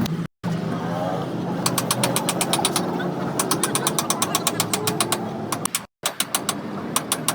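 A motor running steadily, with a rapid, regular metallic clicking of about seven clicks a second over it; the sound drops out abruptly twice, briefly.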